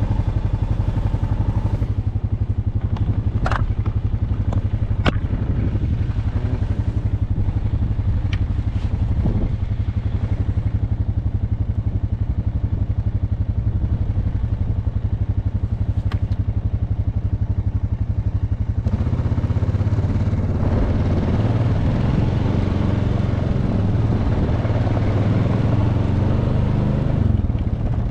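ATV engine running steadily while the machine rides along a snow trail, with a couple of sharp knocks a few seconds in. About two-thirds of the way through the engine grows louder.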